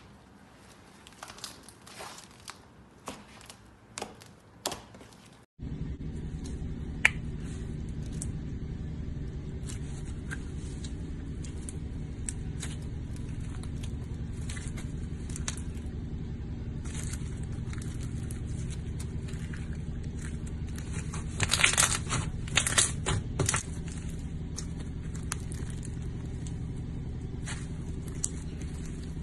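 Slime being squished and stretched by hand, giving sharp crackling clicks and small pops. About five seconds in, a steady low hum comes in underneath as the recording changes to a clear glitter slime. A louder flurry of crackling and tearing comes a little past the twenty-second mark.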